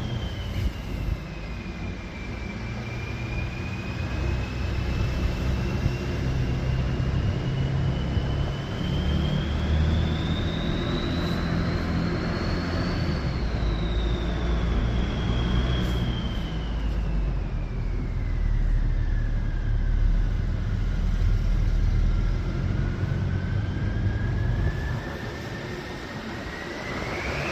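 Twin-turbo whistle from a BMW E90 335d's 3.0-litre diesel inline-six, a thin high whistle over the engine's low rumble. The whistle's pitch glides slowly up and down with the turbos' speed, highest about halfway through and lowest a little after two thirds in, then climbs again near the end.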